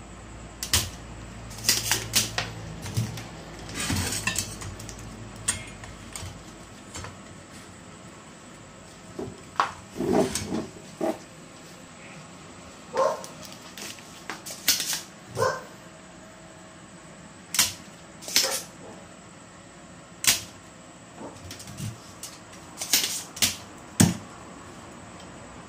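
Irregular sharp snaps and plastic knocks, about twenty of them, as a relay is desoldered from an air-conditioner fan control board: a spring-loaded desoldering pump firing and the plastic-framed board being handled on the bench.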